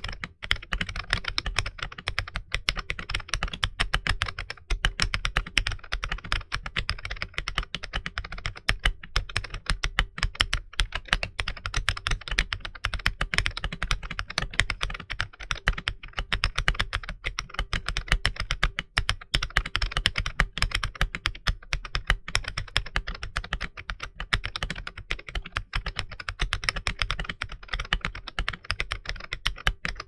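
Fast, continuous typing on an Ajazz AKS068 mechanical keyboard with Ajazz Red linear switches and PBT OEM-profile keycaps: a dense, irregular clatter of key presses with no pauses.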